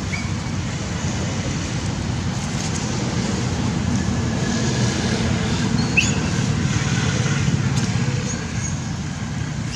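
Steady low rumble of road traffic that swells for a few seconds in the middle as a vehicle passes, with a brief high rising chirp about six seconds in.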